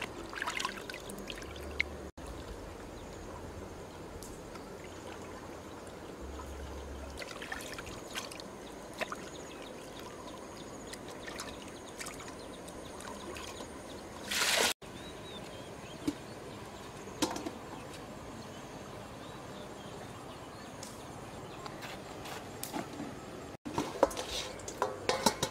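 Water splashing and trickling in a metal bowl as squid are rubbed and rinsed by hand, in short irregular bursts. Near the end come a few sharp knocks as plastic dishes are moved.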